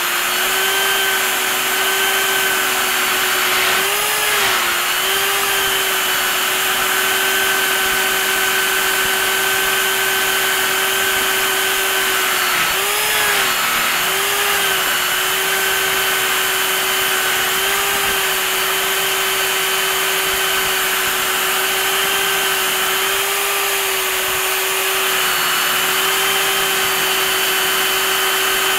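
Drill press spinning a polishing wheel, with an old iron's metal shell held against it: a steady motor hum over a constant rushing hiss. The hum dips briefly in pitch a few times.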